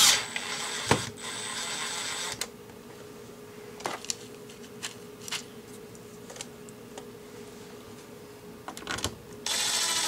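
Makita cordless driver running in short bursts, driving screws into the plastic bottom case of a CD player: one burst of about two seconds at the start and another near the end, with a steady high whine. Clicks and handling knocks come in between.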